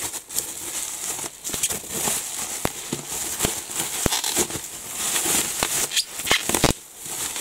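Bubble wrap rustling and crinkling as it is pulled off a book, with many sharp crackles.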